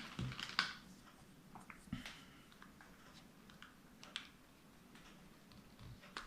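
Faint, scattered small clicks and taps of hand tools and small plastic parts being handled while a Joy-Con controller is worked open.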